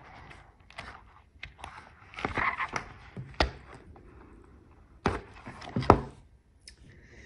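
Handling of cured epoxy resin pieces and a silicone mould: scattered light clicks and a few sharper knocks, the loudest about three and a half seconds in and again around five to six seconds in, with a brief rustle between them.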